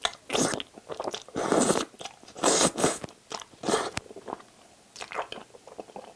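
Close-miked eating sounds: wet slurps and chews of wide glass noodles and rice in spicy sauce, coming in several bursts about a second apart, with a sharp click about four seconds in.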